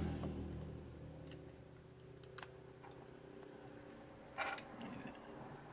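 A few faint, sharp clicks and taps from small tools and parts being handled while working a tiny screw into a drone camera, over a low steady hum; a passing vehicle fades out at the start.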